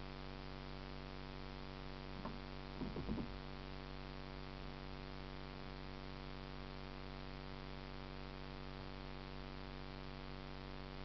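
Steady electrical hum with hiss. A few short, faint sounds break through about two and three seconds in.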